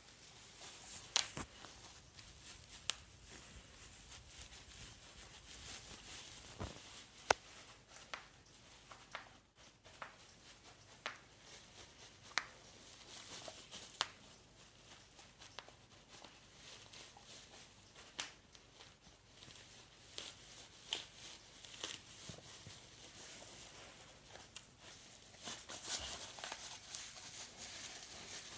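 A dog popping bubble wrap with its teeth: irregular sharp pops, a few seconds apart or in quick clusters, over the crinkling of the plastic sheet.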